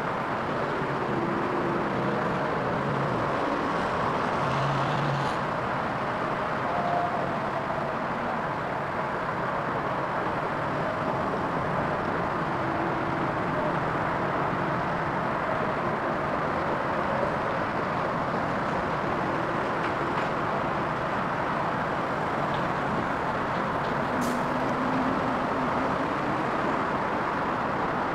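Steady hiss of road traffic, with faint engine hums of passing vehicles coming and going.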